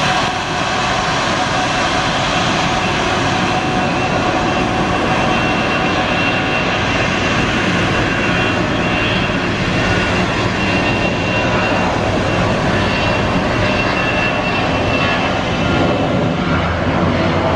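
Airbus A330 airliner's turbines running with a steady, loud whine over a roar. A deeper hum joins near the end.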